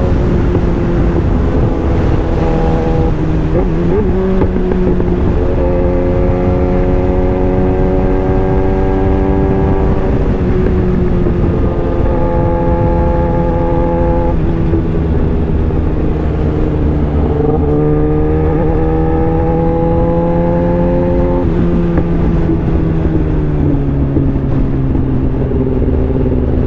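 Kawasaki ZX-10R inline-four engine running under way at moderate revs. Its pitch holds or climbs slowly, then drops or jumps in steps several times as the rider rolls on and off the throttle and changes gear.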